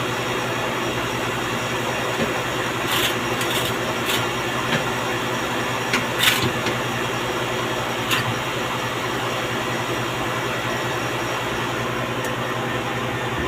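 A machine running steadily with a constant, even hum, and a few short clicks or knocks about three, six and eight seconds in.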